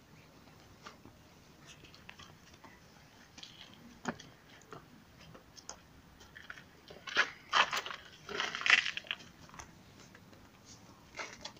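Footsteps crunching on gravel and rubble, loudest in a cluster of crunches about seven to nine seconds in, with scattered small clicks and knocks around them.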